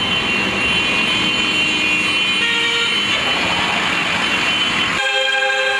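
Convoy of trucks passing at close range, engines running with horns sounding over the traffic noise. About five seconds in, one clear horn blast is held for about a second.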